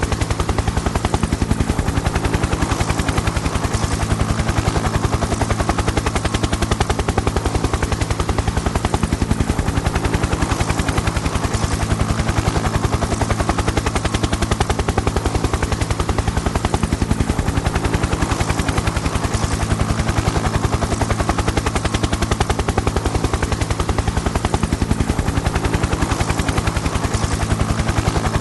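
Helicopter rotor blades chopping in a fast, even beat over a steady engine drone, holding level with no pass-by or change.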